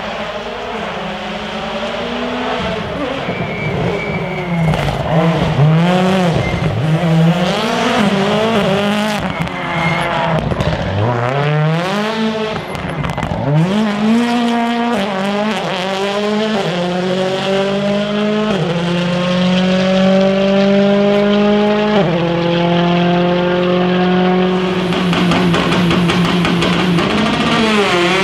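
A World Rally Car's 1.6-litre turbocharged four-cylinder engine driven hard. Its pitch swings sharply up and down with throttle and downshifts through the first half, with a brief crackle around the middle. It then accelerates through several gears, each upshift dropping the pitch before it climbs again.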